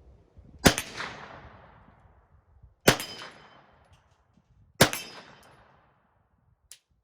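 Three single shots from a Kel-Tec Sub-2000 9mm carbine, about two seconds apart. Each shot is followed by an echo that fades over about a second. A short click comes near the end.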